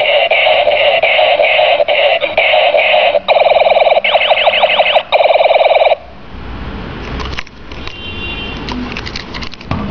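Light-up toy dinosaur gun playing its electronic sound effect through a small speaker: a loud, harsh buzzing blast that turns about three seconds in into a fast pulsing warble, then cuts off suddenly about six seconds in. After that come clicks and knocks of the plastic toy being handled.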